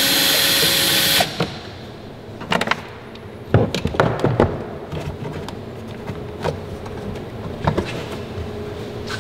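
Cordless ratchet with a 10 mm socket running a bolt out, its motor whine stopping abruptly about a second in. Scattered clicks and knocks of plastic trim parts being handled follow.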